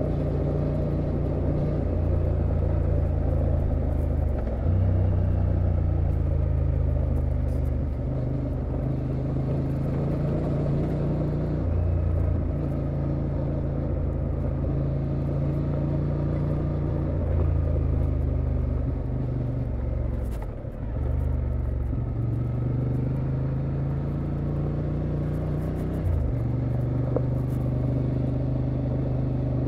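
Honda XL750 Transalp's 755 cc parallel-twin engine running steadily while the motorcycle cruises. The engine pitch steps up and down a few times, and the engine sound dips briefly about twenty seconds in.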